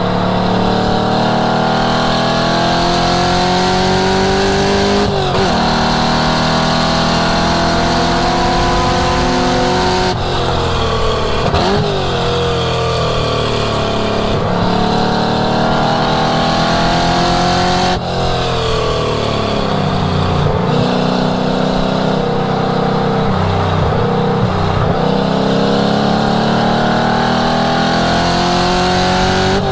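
1967 Mustang's 5.0-litre V8, heard through its exhaust, pulling hard on a race track. The revs climb steadily, then drop sharply at gear changes and lifts about six times before building again.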